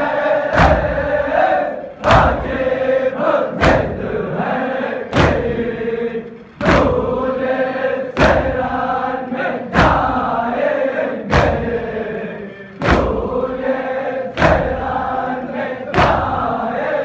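A group of mourners chanting a noha together, kept in time by a sharp slap of chest-beating (matam) about every second and a half.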